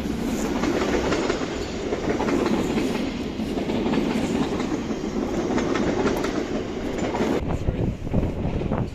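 Steady mechanical rumble with a dense, fast rattle, like machinery running or a heavy vehicle rolling, changing slightly near the end.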